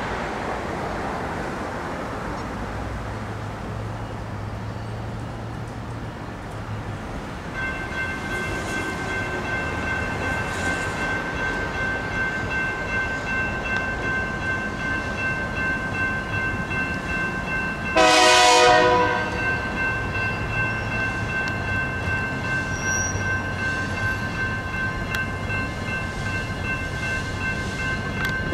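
Crossing signals' General Signals Type 2 electronic bells start ringing about a quarter of the way in, a steady high ringing that carries on. About two-thirds through, an approaching freight locomotive's air horn sounds one loud blast of about a second for the crossing.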